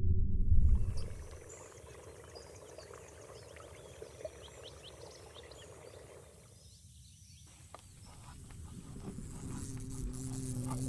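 Music ends about a second in, leaving faint woodland ambience of birds chirping and insects. Near the end a low, steady buzz grows louder: an insect flying close by, which is taken for a wasp.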